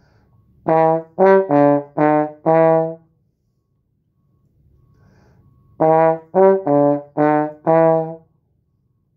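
Tenor trombone playing a five-note phrase twice: E, G, D, D sharp, E in short, separate notes, with a pause between the two runs.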